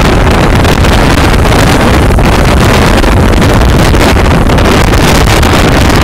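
Strong wind buffeting a small camera microphone: a loud, steady rushing roar that swamps everything else.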